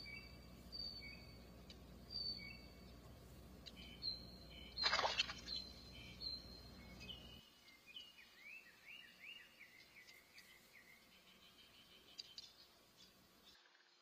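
Birds chirping in the background: short high whistled notes repeating, a loud sudden burst about five seconds in, then a quick run of falling chirps. A low steady background noise drops away partway through.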